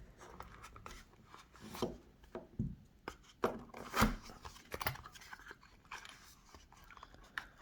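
Handling noises from a product box and its packaging as items are worked out of it: scattered light knocks, rustles and clicks, the loudest about four seconds in.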